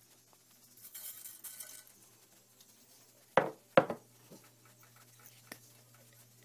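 Mustard seeds going into hot oil in a nonstick saucepan: a brief sizzling hiss about a second in. Two sharp knocks on the pan come about halfway through, and a couple of faint ticks follow.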